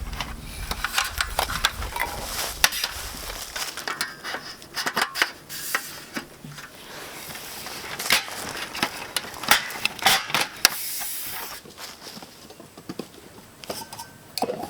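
Camping gear being handled and unpacked: irregular rustling and crinkling with light knocks and clicks, over a low rumble that fades after the first few seconds.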